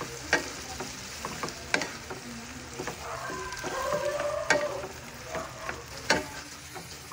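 Whole shrimp sizzling in butter in a nonstick frying pan while a wooden spatula stirs them, knocking sharply against the pan about four times, with a squeaky scrape about halfway through.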